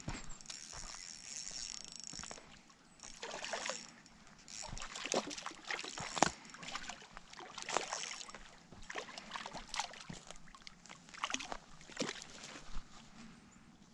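A hooked trout splashing at the pond's surface as it is reeled in to the bank, with irregular splashes and slaps of water throughout.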